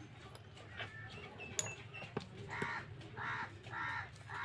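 Crow cawing, four harsh calls in a row in the second half, with a few light clicks and taps before them.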